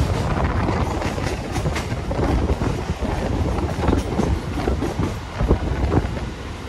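A train running along the track: a steady rumble with irregular clicks and clatter from the wheels on the rails.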